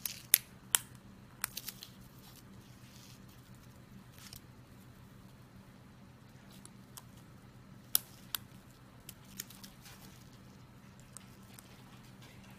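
Plastic keycaps on an Acer backlit laptop keyboard snapping off their scissor clips as a small prying tool levers them up: a few sharp clicks within the first two seconds, then a few more about eight to nine seconds in.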